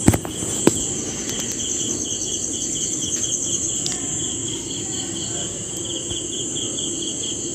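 Spatula stirring and scraping sliced onions in a nonstick frying pan, with two sharp knocks against the pan in the first second. A steady high-pitched pulsing chirping runs behind it.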